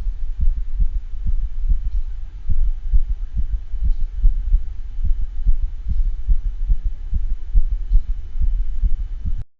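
Recorded heartbeat of a dog with degenerative mitral valve disease in congestive heart failure: a fast series of low thuds with a systolic regurgitant murmur, and an arrhythmia from premature depolarizations. The recording cuts off suddenly near the end.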